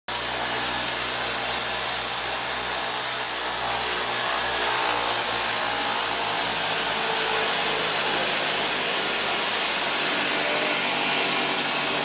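The twin PT6A turboprop engines and propellers of a DHC-6 Twin Otter seaplane running, heard from inside the cockpit: a loud steady drone under a high turbine whine that sags slowly in pitch and rises again near the end, as the pilot works the overhead power levers.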